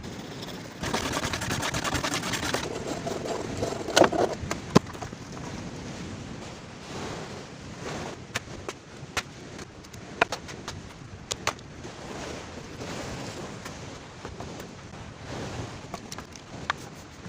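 A rush of noise lasting a couple of seconds, then scattered sharp knocks and clicks. The loudest two come close together about four seconds in.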